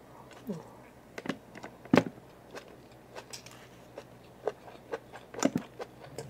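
Close-miked eating: chewing with a fork tapping and scraping on a plate, heard as a scatter of short sharp clicks, the loudest about two seconds in.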